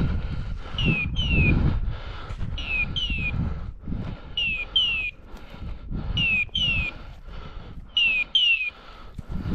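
A hunting dog's beeper collar in point mode, sounding pairs of short falling electronic chirps five times, about every two seconds, which signals that the setter is holding point. Low wind rumble on the microphone lies underneath.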